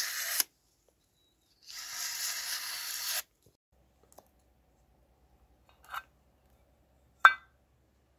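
Kitchen knife slicing through a sheet of paper in two long strokes, a dry rasp each time, the paper-cut test of a freshly sharpened edge. Then a tool prying at the lid of a metal tin gives a small clink, and about a second later a louder, sharp metallic pop with a short ring as the lid comes free.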